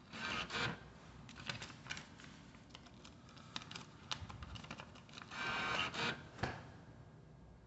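Handling noise: scattered light clicks and taps, with two short rustles, one just after the start and a longer one about five and a half seconds in.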